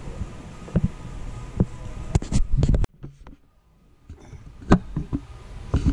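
Scattered knocks and clicks of walking and handling, with a quick cluster about two seconds in, over a steady hum. The sound cuts out abruptly for about a second near the middle, then the knocks return.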